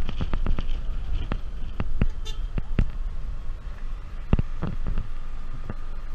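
Low rumble of a vehicle driving slowly, picked up by a camera mounted on its bonnet, with irregular sharp knocks and clicks scattered through it.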